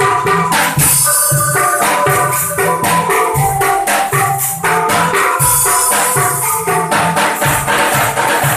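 Angklung ensemble playing a lively instrumental tune: shaken bamboo angklung and a bamboo xylophone sound the pitched notes over a steady beat from a plastic-barrel bass drum and cymbals.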